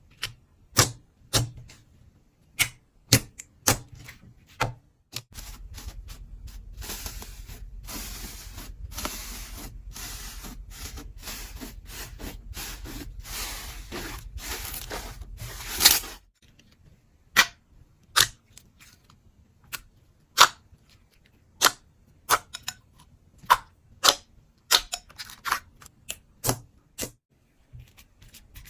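Slime being squeezed and pressed by hand, giving sharp, separate pops and clicks, with a stretch of continuous squishing noise over a low hum in the middle.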